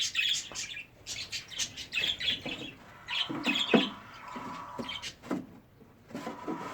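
Birds chirping and calling in quick short bursts, with a few sharp knocks and some scraping of wood as the wooden nest box's removable inner tray is handled.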